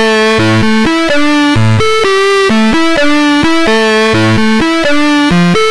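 Background music: an electronic synthesizer melody of short, distinct notes changing a few times a second.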